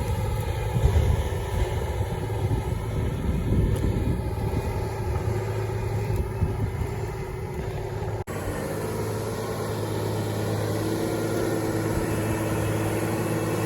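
Case 600 Quadtrac tractor's diesel engine running steadily, heard from inside the cab, with a brief break in the sound about eight seconds in.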